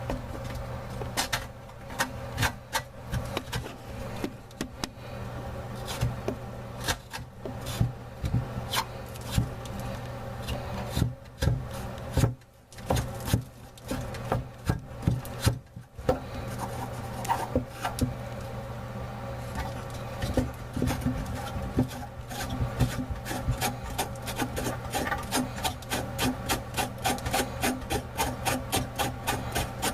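Black mounting nut on a bathroom faucet's tailpiece being unscrewed under the sink, making repeated scraping, rasping clicks. Near the end the clicks settle into a steady run of about three a second.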